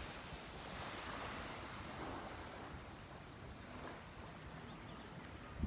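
Faint sea surf washing on the shore, a soft steady hiss that swells gently now and then.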